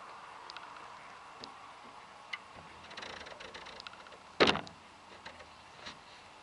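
One sharp, loud knock about four and a half seconds in, over a faint outdoor background with scattered light ticks.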